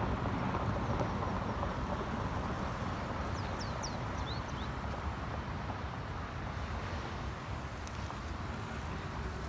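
Steady low rumble of open-air background noise, with a handful of short high bird chirps about three and a half to four and a half seconds in.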